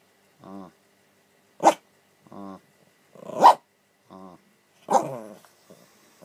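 Chihuahua barking sharply three times, spaced a couple of seconds apart, while pestering a sleeping person to wake up. Shorter, softer pitched vocal sounds come between the barks.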